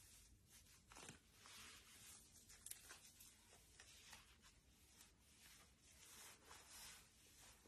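Faint, irregular rustling of sheer nylon stockings being drawn up the leg and adjusted by hand.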